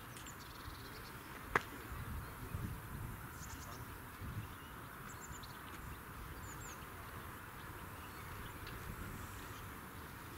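Faint outdoor ambience: a steady hiss with a few short high chirps and some low rumbling, broken by a single sharp click about one and a half seconds in.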